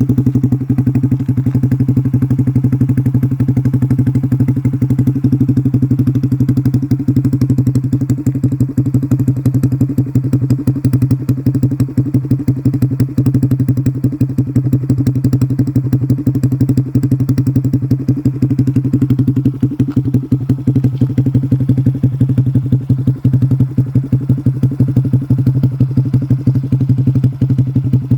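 Honda Super Cub C125's single-cylinder four-stroke engine idling steadily through an aftermarket short silencer, a loud exhaust note of rapid, even pulses.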